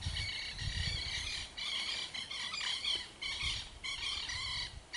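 Beagles giving tongue on a rabbit's scent: a string of high-pitched yelping cries with short breaks between them.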